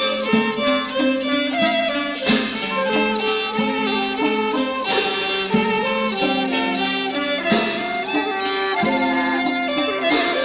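Background music: a melody of held notes that change pitch every second or so, with no pause.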